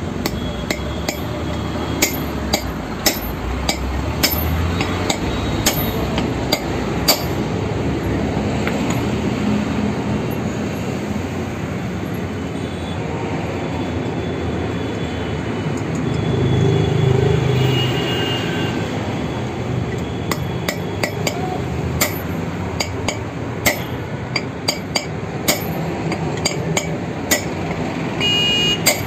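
A hammer striking steel on a car's brake drum, knocking the wheel studs out of the hub to replace them: sharp, irregular metallic strikes in two spells with a pause between. A steady background din runs throughout.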